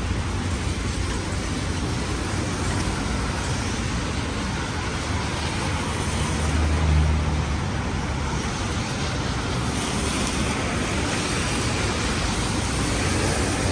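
Rainy city street ambience: a steady hiss of rain and traffic on wet road. A low vehicle rumble swells and fades about halfway through as something passes.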